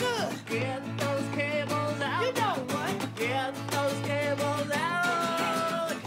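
Guitar playing under a woman singing, her voice sliding up and down in pitch, with a long held note near the end.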